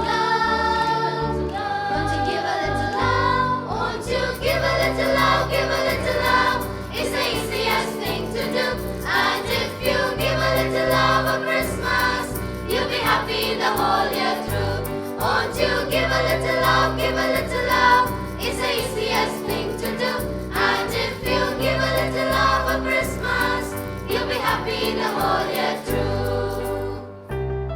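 Choir singing a Christian Christmas song over a band backing with a steady beat. The beat and percussion come in about four seconds in, and the music drops away near the end.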